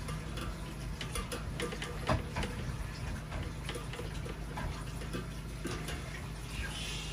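Water trickling with irregular light clicks over a steady low machine hum, while a drain inspection camera's push cable is fed down the pipe.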